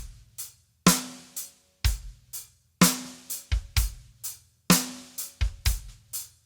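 Drum kit playing a simple, steady groove: bass drum, snare backbeat and hi-hat strokes, struck with a relaxed rebounding stroke rather than force.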